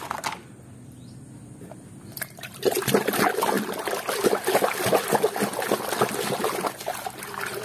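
Muddy water in a plastic tub splashing and sloshing as a hand swishes toys around in it. It starts about two and a half seconds in and goes on in quick, irregular splashes.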